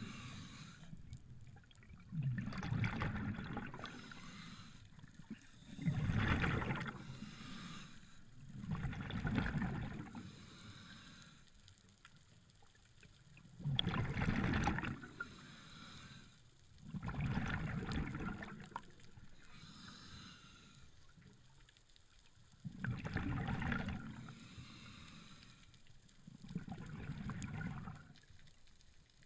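A diver breathing through a scuba regulator underwater: breaths hissing in and bubbling out, repeating about every three to four seconds.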